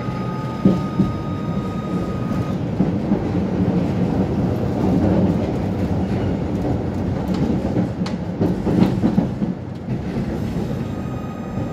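A Tatra-Yug K1M8 tram running along the track, heard from inside the passenger saloon: a steady rumble of wheels on rails. A high steady whine stops about two seconds in, and a few sharp knocks come about a second in and again near nine seconds.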